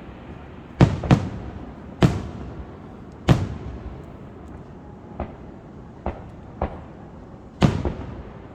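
Aerial fireworks shells bursting in a display: about five loud booms at uneven intervals, each trailing off over a second or so, with three fainter bangs in between.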